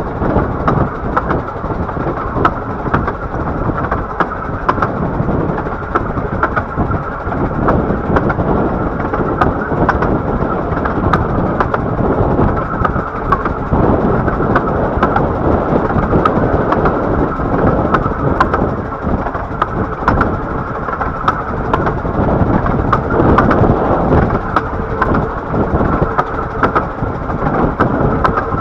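A 15-inch-gauge miniature steam train running along the line, heard from the carriage behind the locomotive: a steady rumble of wheels on rail with many small clicks. A faint steady tone joins in near the end.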